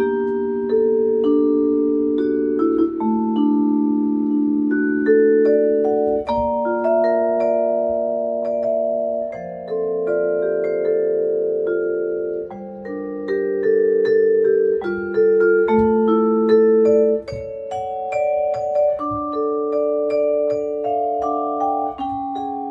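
Kōrogi vibraphone played with yarn mallets, two in each hand: a melody over chords, each note struck cleanly and left to ring long so that the notes overlap.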